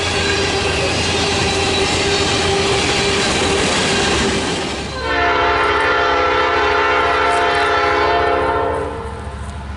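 A train rolling past with loud wheel-and-rail noise. About five seconds in, a locomotive air horn sounds one long blast of several notes together, cutting off near the end and leaving the rumble of the train.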